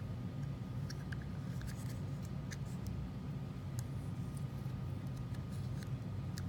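Light, scattered clicks and taps of the plastic Apple headphone case and earbuds being handled, over a steady low hum.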